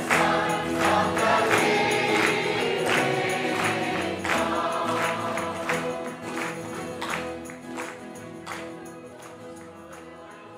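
Gospel choir song with a steady percussion beat, fading out gradually.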